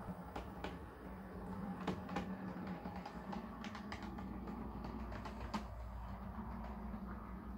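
Bachmann OO gauge class 419 Motor Luggage Van model running along the track: a steady low motor hum, with irregular clicks as its wheels cross rail joints and pointwork.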